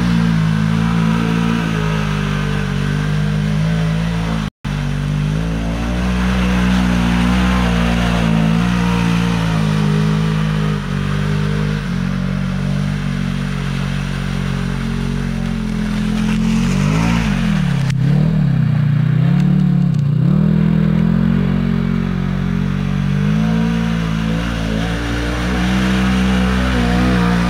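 Side-by-side UTV engine running steadily, revving up and down in swells about two-thirds of the way in. The sound cuts out for an instant about four seconds in.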